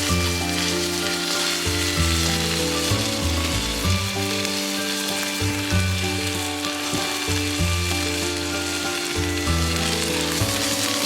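Meat sizzling and frying in a hot pan over a campfire, under background music of held, changing chords.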